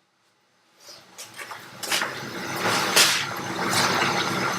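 A motor starting up about a second in and then running steadily with a low hum.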